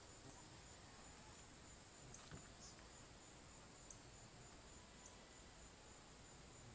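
Near silence with a faint, steady, high insect trill, typical of crickets in a summer pasture, and a few faint ticks.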